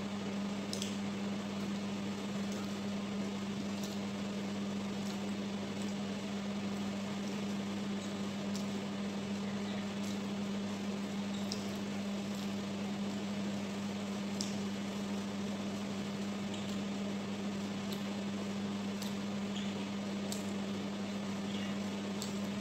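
A steady low appliance hum with an even hiss, under faint scattered clicks and mouth sounds of someone chewing food and picking it up by hand.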